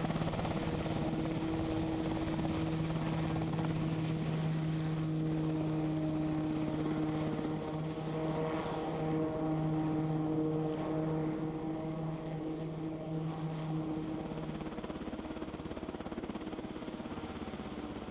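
Piasecki X-49A compound helicopter (a modified SH-60F Seahawk with a ducted tail propeller) running, its rotor and engine noise carrying a steady low hum. The hum fades out a few seconds before the end while the broader engine noise carries on more softly.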